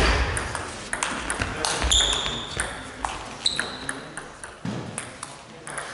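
Table tennis rally: a celluloid ball clicking off bats and the table many times in quick, uneven succession, echoing in a large sports hall, with two brief high squeaks in the middle.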